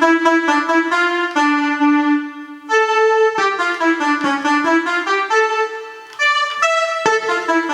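Odisei Travel Sax 2 electronic wind instrument playing a melody on its 'Bass Lead' synthesizer preset. The tone is bright and rich in overtones. A few long held notes give way to quicker runs, with a brief dip about six seconds in.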